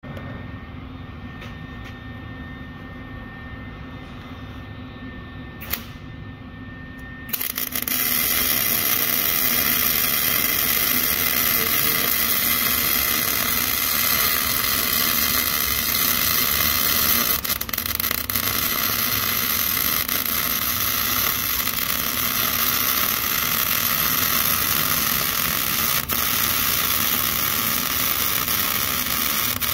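Shop background with a faint steady tone and one click, then about a quarter of the way in an arc welder strikes up and runs with a steady, loud, crackling hiss as it welds the end of a braided exhaust flex pipe to the exhaust tube.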